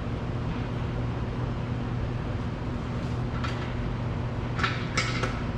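Steady background machine hum, with a few brief metallic clinks and scrapes about three and a half seconds in and again near the end as the oil drain plug is handled and started back into the oil pan by hand.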